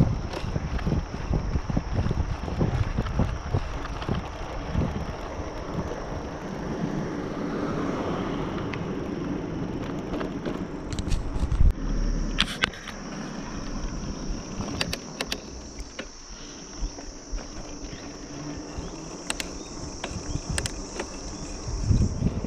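Wind buffeting the microphone and tyre noise from a bicycle rolling along a paved road, with scattered clicks and rattles over bumps and a thump about halfway through. A steady high buzz runs underneath and grows stronger in the second half.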